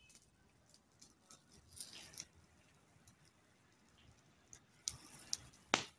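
Small fire of dry grass and a green leaf crackling faintly, with scattered small pops, a brief cluster about two seconds in, and a few sharper snaps near the end, the last the loudest.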